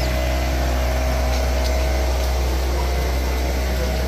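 An engine running steadily at constant speed, giving a deep, even hum with no change in pitch.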